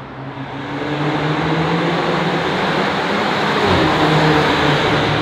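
Mercedes-Benz GLB 250's turbocharged four-cylinder accelerating through an ARMYTRIX de-cat turbo-back valvetronic exhaust in a tunnel. The engine note grows louder as the car approaches and passes, and is loudest about four seconds in.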